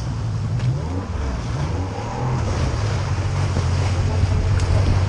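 RNLI lifeboat's engine running steadily under way, with wind and water noise over it.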